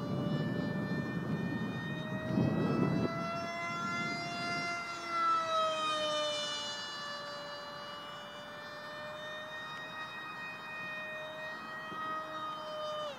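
Small radio-controlled F-15K model jet flying overhead, its motor giving a steady high whine with many overtones. The whine rises slightly in pitch a few seconds in, then falls back and holds. A low rumble sits under it in the first few seconds.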